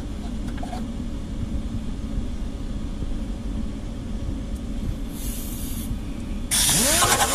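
Pneumatic die grinder with a wire end brush: a short hiss of air about five seconds in, then the tool starts suddenly and runs loud, a whine that rises and dips in speed over a dense brushing hiss. A steady low rumble runs underneath.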